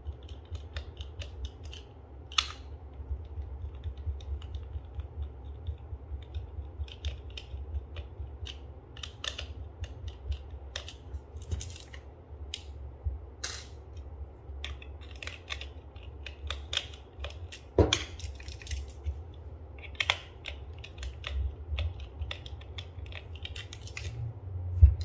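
Small screwdriver backing screws out of a plastic soap-dispenser housing, with the plastic parts being handled: scattered clicks, scrapes and light knocks, and a few sharper clacks, over a low steady hum.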